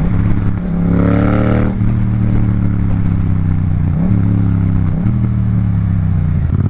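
Yamaha MT-07's parallel-twin engine through a full Akrapovic titanium exhaust, running under way. Its note climbs as the revs rise about a second in, then it runs steadily with small rises and dips in pitch.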